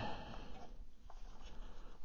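Faint rubbing and a few light clicks from fingers handling a small plastic SkyRC GSM-010 GPS speed meter.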